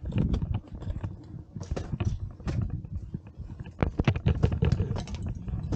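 Ice climbing on a frozen waterfall: a quick, irregular run of sharp knocks and scrapes from ice tools and crampons biting into the ice, several a second, over a low rumble.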